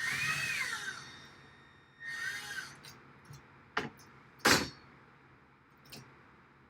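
Power drill run in two short bursts, its motor whine rising and falling in pitch as the trigger is squeezed and let go, followed by a few sharp knocks, the loudest about halfway through.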